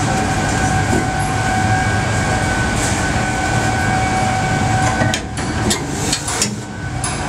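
Car assembly-line machinery running: a steady mechanical noise with a constant whine, rolling like a conveyor. A few sharp clanks and knocks come about five seconds in.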